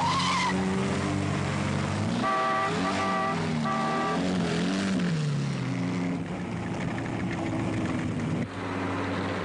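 Porsche 356 sports car engine running hard, its pitch rising and falling as it revs up and down on the climb. A car horn sounds in short blasts about two seconds in.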